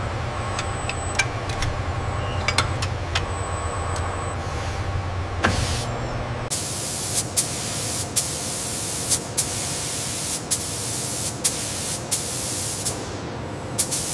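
A low steady machine hum with a few light metallic clicks gives way, about six seconds in, to a gravity-feed paint spray gun hissing as a coat is sprayed, broken by brief pauses.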